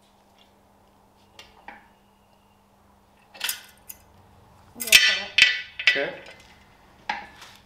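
Steel-on-steel clanks from a rotating engine stand as its locking pin and crank handle are worked to turn the engine over: a couple of light clicks, then about five sharp ringing clanks in the second half, the loudest near the middle.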